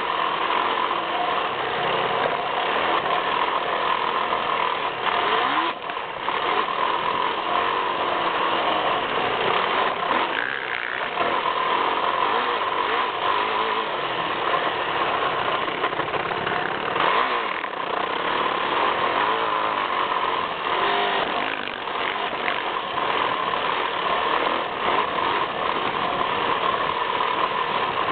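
Yamaha YZ450F four-stroke single-cylinder motocross engine running hard while riding, heard close up from the front fender with wind and dirt noise. The throttle comes off briefly a few times, with short dips in the sound, then the engine pulls again.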